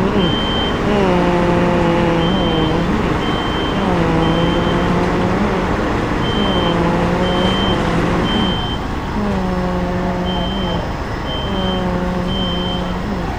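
Heavy fire-apparatus diesel engine at the fire ground, its drone holding and then sagging in pitch every couple of seconds. Over it a vehicle's backup alarm beeps about twice a second, in stretches.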